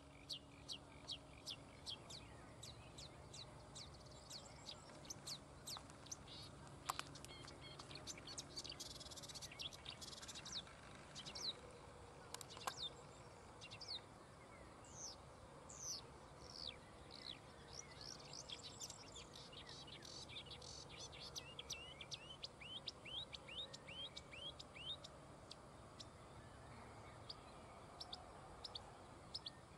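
Marsh warbler singing: a long, varied song of quick chirps and short high notes, turning in places into fast series of repeated falling notes.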